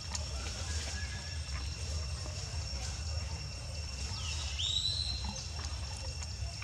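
A single short, high squeal from a baby monkey about four and a half seconds in; the call dips in pitch, then rises and holds. A steady low hum runs under it.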